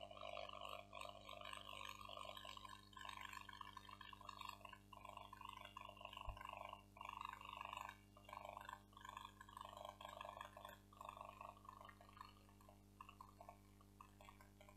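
Near silence: room tone with a steady low hum and faint, indistinct sounds that fade toward the end.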